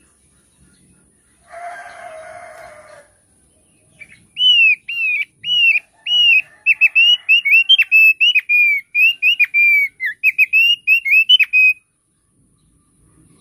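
Thick-billed white-eye (opior paruh tebal) singing a rapid run of clear, down-slurred whistled notes, about three or four a second, for roughly seven seconds. Before the song, about a second and a half in, a rooster crows briefly.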